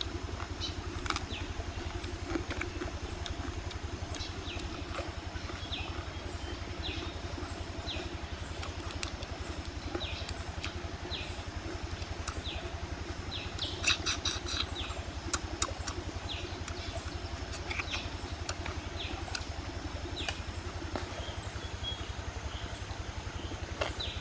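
Outdoor ambience: a steady low rumble with short chirps scattered throughout, and a brief run of sharp crackling clicks about fourteen seconds in.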